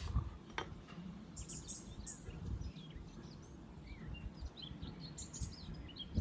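Small birds chirping faintly, many short calls and quick pitch glides, over a low rumbling background noise.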